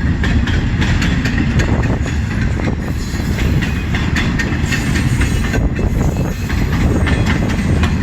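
CN freight train's cars rolling past, with a steady low rumble and steel wheels clacking irregularly over the rail joints.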